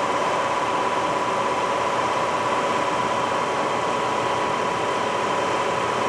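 1972 Monarch 25 x 48 toolroom engine lathe (Series 62 preselect head) running with its spindle at 1,000 RPM. The headstock gearing and drive make a steady whir with a constant high whine and no change in speed.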